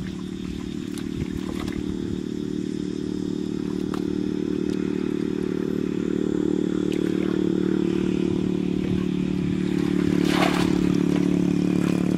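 Steady hum of an engine running at an even speed, slowly growing louder. A splash of water comes near the end as muddy water is tipped out of a plastic bucket.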